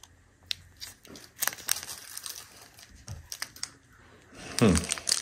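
A plastic candy-bar wrapper crinkling and tearing in scattered crackles as it is handled and opened. Near the end, a person hums a falling note, which is the loudest sound.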